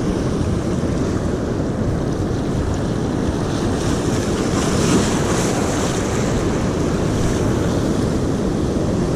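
Sea surf washing against coastal rocks, with wind buffeting the microphone as a steady low rumble; a wave's wash swells into a louder hiss about five seconds in.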